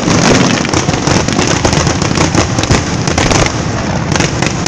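Fireworks display going off in a loud, continuous crackle of many rapid pops.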